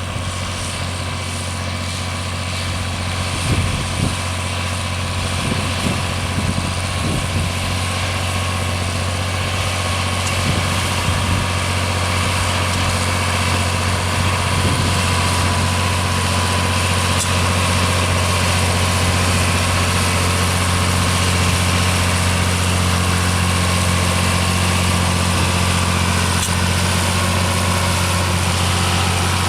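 John Deere 4020 tractor's six-cylinder engine running steadily under load while driving a sawmill through its belt pulley. It gives a constant low drone, with a mechanical haze from the mill on top, and grows a little louder over the first half.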